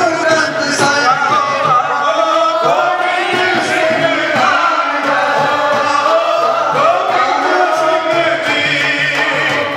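Sikh kirtan: devotional hymn singing by voices in chorus, with steady musical accompaniment.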